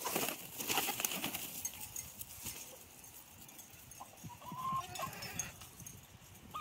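Flock of backyard hens feeding on scattered treats: scratching and pecking at dry ground, busiest in the first second, with a hen's short call about four and a half seconds in.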